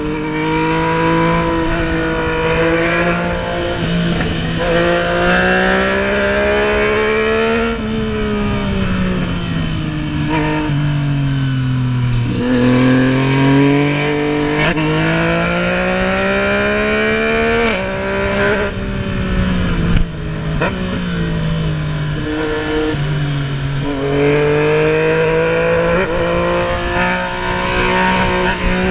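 Yamaha MT-09's three-cylinder engine heard from the rider's seat while riding, its pitch climbing and dropping repeatedly with throttle and gear changes, over a steady rush of wind noise.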